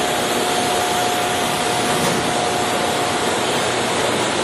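Monarch heavy-duty engine lathe running with a steady mechanical rush, a faint steady tone in it fading out about halfway through.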